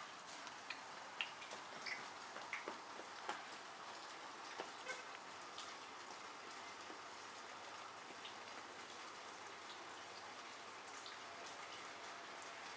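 Light rain falling: a faint steady hiss with scattered drops ticking, most often in the first five seconds or so.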